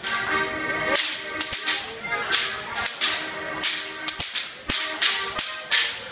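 Bavarian whip cracking (Goaßlschnalzen): a whip cracked over and over in a steady rhythm, about two sharp cracks a second, over band music.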